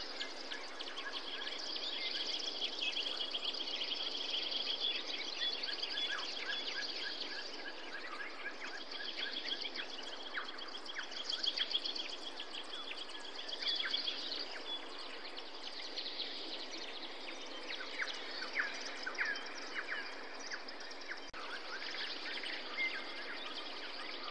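Bushveld ambience: many wild birds chirping and trilling over a steady background hiss.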